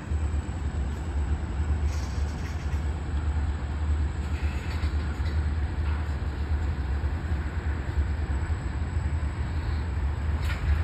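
Freight train of tank cars rolling past, a steady low rumble of steel wheels on rail.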